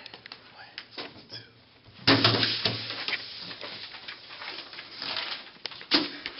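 Several people rubbing and handling sheets of paper on a tabletop: scattered soft taps at first, then a dense scratchy rustle that starts suddenly about two seconds in and keeps going.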